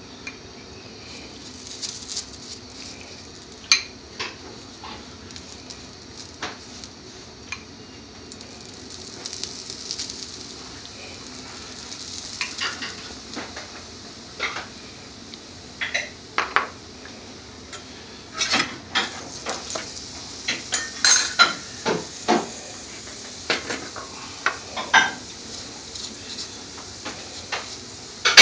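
Paratha frying in butter ghee on a flat tawa pan, a steady high sizzle that builds in the second half. Frequent clinks and scrapes of a utensil against the pan as ghee is spread over the bread, busiest towards the end, with one loud knock at the very end.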